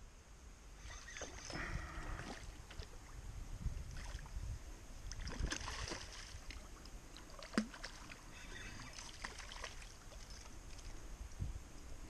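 Hooked trout thrashing and splashing at the water's surface as it is played in to the bank, in irregular splashes over the first half, with a single sharp tap a little after the middle.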